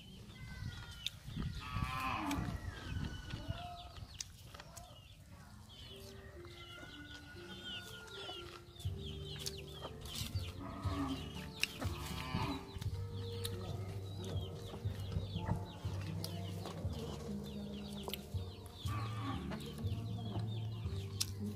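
Domestic chickens clucking, with background music of low, stepping notes coming in about a third of the way through and continuing.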